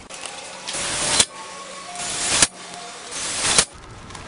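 Cordless drill driving self-drilling screws into thin steel C-section three times in quick succession. Each drive grows louder as the screw's tip cuts through the steel, then ends abruptly with a sharp peak as the screw seats.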